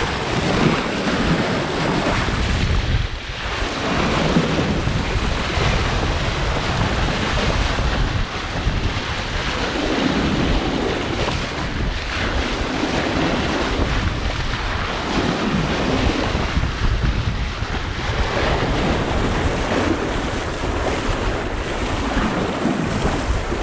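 Wind buffeting the microphone over the rush of sea water along the hull of a sailing yacht under way at speed, the water noise swelling and easing every few seconds.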